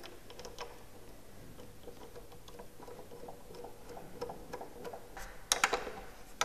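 Small metallic clicks and ticks as a scooter's front disc brake caliper is handled against the fork and its fixing screws are started by hand. A brief cluster of louder clicks comes a little past five seconds in.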